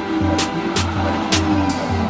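Background music with a heavy pulsing bass beat and sharp percussion hits.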